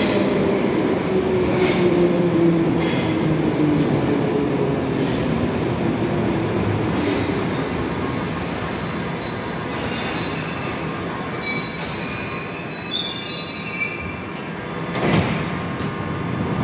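London Underground 1973 Stock train slowing into a station platform. Its motor whine falls steadily in pitch while the wheels click over rail joints, then high-pitched wheel squeals set in about halfway through as it draws to a stop, with a short loud burst of noise near the end.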